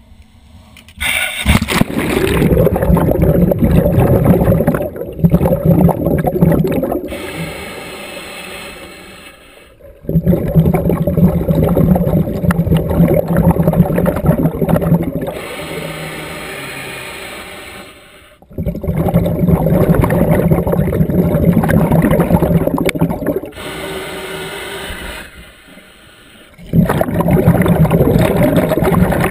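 Scuba diver breathing through a regulator underwater. Four long, loud bubbling exhalations come about eight seconds apart, with quieter hissing inhalations between them.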